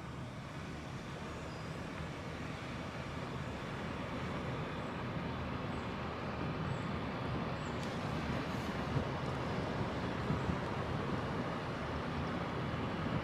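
A car driving slowly, with steady engine and tyre noise that grows gradually louder.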